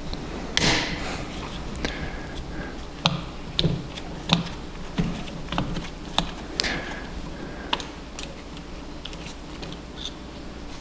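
Folding Allen key clicking and scraping against the steel case of an ARB Air Locker differential as a countersunk retaining pin is unscrewed. There is a short sharp metal click about every half second through the middle, with glove rustling, and the clicks thin out near the end.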